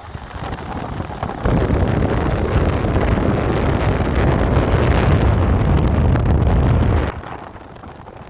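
Air blowing from an air conditioner's vent in electric heat mode onto the microphone, a loud rushing buffet with a deep rumble. It builds over the first second and a half and falls away about seven seconds in.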